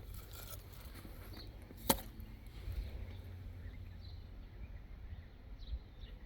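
Quiet outdoor ambience: a steady low rumble with a few faint bird chirps, and one sharp click about two seconds in.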